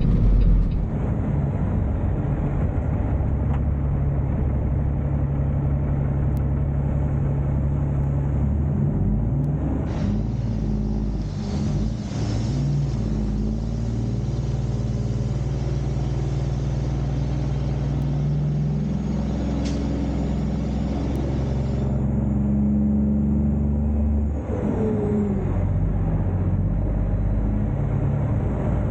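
Peterbilt semi truck's diesel engine running as the truck drives, a steady low hum whose pitch shifts several times.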